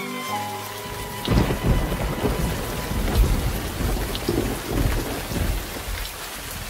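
Thunderstorm: steady heavy rain with rolling thunder rumbling underneath, coming in about a second in as the last notes of string music fade, and loudest about three seconds in.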